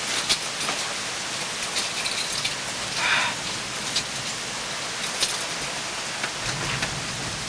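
Steady hiss with scattered light ticks, and a brief louder rustle about three seconds in.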